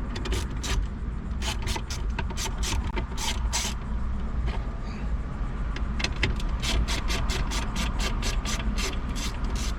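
Rapid clicking of a hand driver turning out two T20 Torx screws from a Dodge Journey's dash radio mount, in two runs with a short lull about halfway, over a steady low background rumble.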